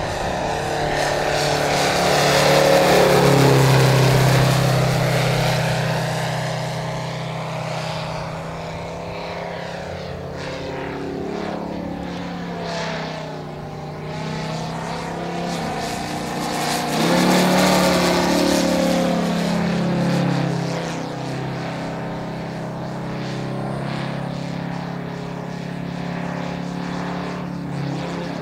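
Moki 250 five-cylinder radial engine of a 40%-scale SU-31 aerobatic model aeroplane running in flight, its pitch and loudness rising and falling as the plane manoeuvres. It passes loudest about three seconds in and again about eighteen seconds in.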